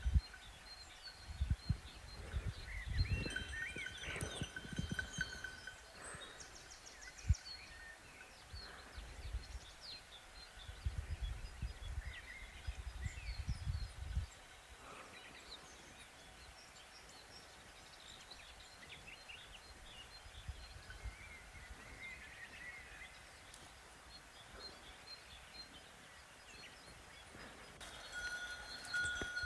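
Cowbell ringing briefly a few seconds in and again near the end, over outdoor ambience with birds chirping here and there. Low rumbling runs through the first half and stops about halfway.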